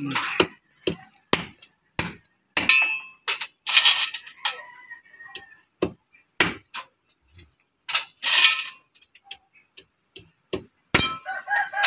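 Cleaver chopping down onto a concrete ledge in irregular sharp chops, cutting the tips off freshwater snail shells (suso). A few chops are heavier and one rings briefly.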